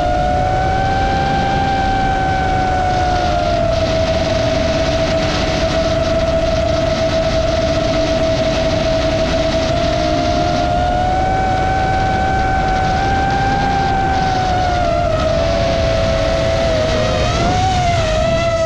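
Roma F4 LR FPV quadcopter's motors and propellers, heard from its onboard camera: a steady high whine that drifts gently up and down in pitch with throttle, over rushing wind noise. Near the end the pitch wavers quickly as the throttle is worked.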